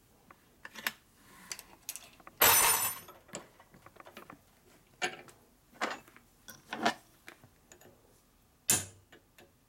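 Small steel transmission parts and hand tools clinking and knocking at a bench vise: scattered single clicks, with a louder half-second rattle about two and a half seconds in.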